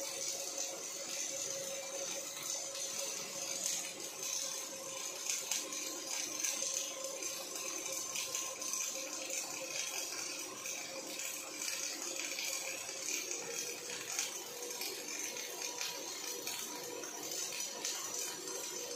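Robotic MIG welding arc from an OTC welding robot's torch on steel: a continuous, even crackling, with a steady hum underneath.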